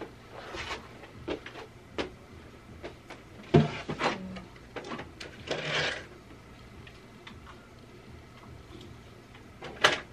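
Scattered small knocks, clicks and brief rustles of hands at work, over a faint steady hum. The loudest knock comes a little over a third of the way in, and a sharp click comes near the end.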